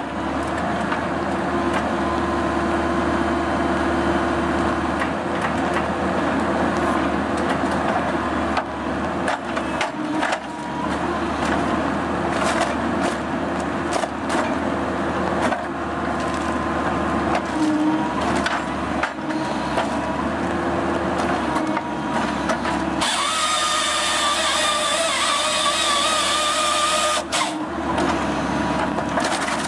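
Excavator engine and hydraulics running steadily while a firewood processor head handles logs, with repeated cracks and knocks of wood. A higher, wavering whine joins for about four seconds near the end as the head's saw cuts through a log.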